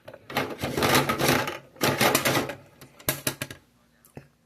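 Small toy blind-box packaging being handled and opened: crinkling and rustling in three bursts, then a single click near the end.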